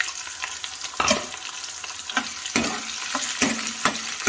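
Freshly added sliced onions sizzle in hot oil with cumin seeds in a kadhai. A steel ladle knocks and scrapes against the pan about half a dozen times as they are stirred, loudest about a second in.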